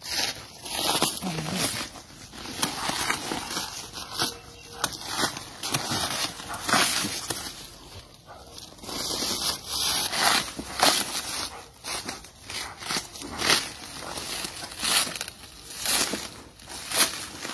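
Dry leaf litter rustling and crackling in irregular bursts as a dog moves and paws through it.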